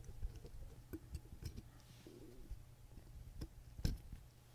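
Faint scattered clicks and ticks of a steel screwdriver and tweezers on the screws of a pocket watch movement's barrel bridge, as the screws are backed out and lifted away. The sharpest click comes a little before the end.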